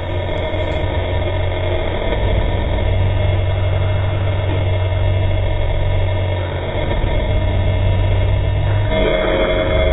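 A steady low rumbling drone. Near the end, sustained higher tones come in as eerie music begins.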